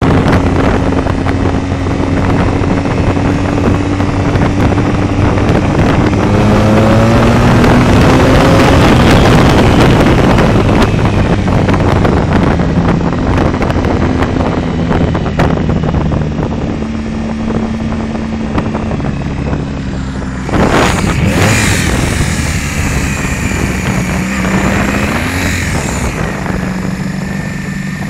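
Honda motorcycle engine running at road speed, with wind noise over the microphone. The engine pitch climbs as the bike accelerates about a quarter of the way in, and a sudden loud rush of noise hits about three quarters of the way through.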